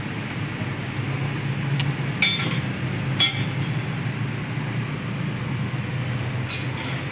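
Three short ringing metallic clinks, about two seconds, three seconds and six and a half seconds in, over a steady low hum.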